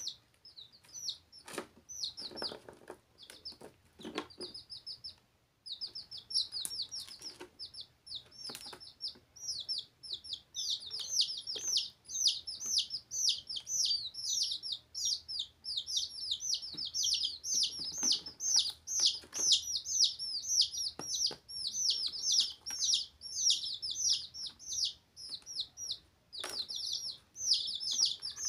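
Domestic chicks peeping: a run of short, high cheeps, each sliding downward in pitch, fairly sparse at first and much denser from about ten seconds in. A few sharp taps sound among them.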